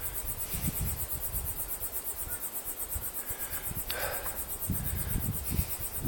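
Insects chirping in a high, evenly pulsing trill, over a low rumble on the microphone, with a brief sharper sound about four seconds in.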